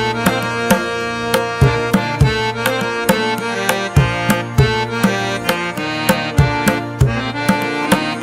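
Music with a steady hand-drum rhythm over sustained melodic tones.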